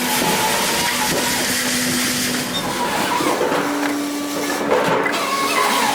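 Wood processing machine running: a loud, steady machine noise with a constant motor hum underneath, as logs are worked into firewood.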